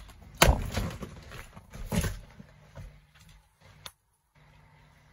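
Toy car cracking and breaking under a sneaker's sole as it is trampled: a loud crack about half a second in, a second crack around two seconds in, then a few small clicks as pieces give way.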